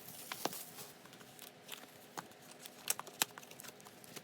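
Hands handling album packaging: light crinkling of paper or plastic near the start, then a scattering of sharp clicks and taps, the loudest two about three seconds in.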